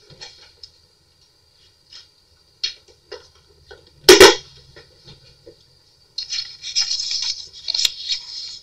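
Scattered light paper ticks, one sharp knock about four seconds in, then steady rustling and crinkling of paper pages from about six seconds on as a handmade junk journal is handled and its pages turned.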